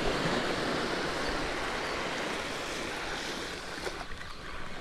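Surf washing onto the beach, a steady rushing wash that eases off after about three seconds.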